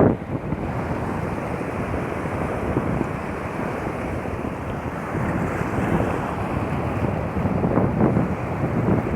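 Sea waves washing onto the shore, with wind buffeting the microphone. The steady wash swells a little louder about six and eight seconds in.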